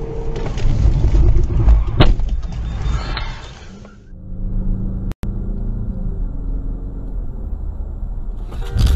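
Dash-cam audio of a car driving, mostly the low rumble of engine and road noise heard from inside the cabin, with a sharp click about two seconds in. Near the end a sudden loud burst of noise breaks in.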